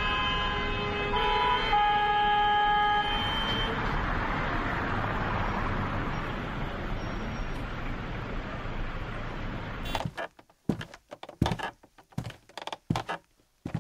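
Vehicle horns sound long, steady blasts for the first three seconds or so over a steady rush of street traffic. About ten seconds in this cuts off abruptly to a run of irregular sharp knocks.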